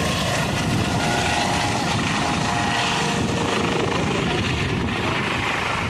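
Helicopter lifting off and climbing away: the rotor and turbine engines run at takeoff power with a loud, steady, heavy noise and faint whine lines riding over it.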